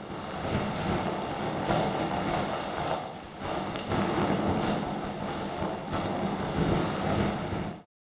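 Plastic bag being crumpled and rustled close to a microphone and amplified, a dense crackling noise that dips briefly about three seconds in and cuts off suddenly near the end.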